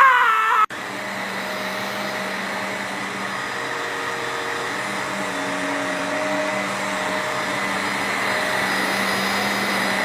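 A man's yell cuts off abruptly under a second in, followed by an upright vacuum cleaner running steadily as it is pushed over carpet: an even rushing noise with a steady motor hum and whine.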